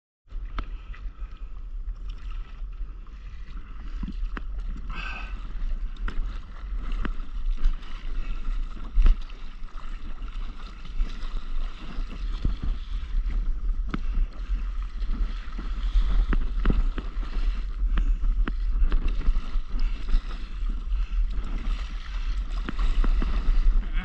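Wind buffeting a camera microphone held just above the sea, over water lapping and splashing against a stand-up paddleboard, with scattered small knocks and splashes.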